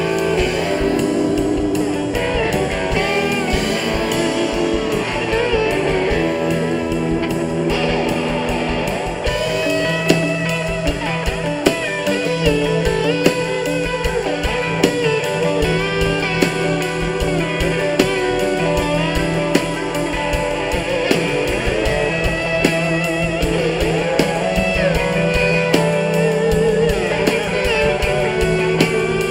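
A live band plays an instrumental break: electric guitar and electric dobro over bass guitar and a drum kit, with a wavering, bending lead line and no singing.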